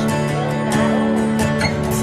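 Background music with a steady beat, led by a plucked guitar.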